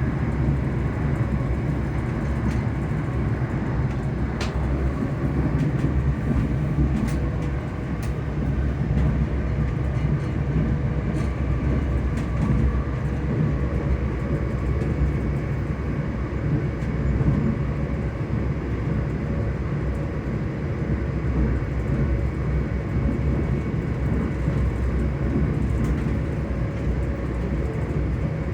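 ScotRail Class 385 electric multiple unit running at speed, heard from inside the carriage: a steady rumble of wheels on track with a faint steady hum from the traction motors, and a few brief clicks.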